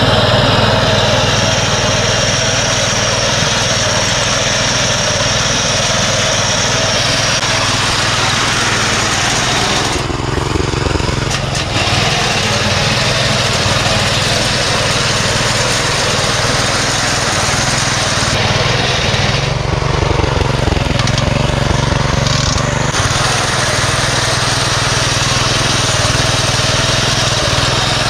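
The small pull-start petrol engine of a walk-behind two-wheel wheat reaper, running steadily under load as the machine cuts standing wheat. The higher part of the sound drops away briefly twice.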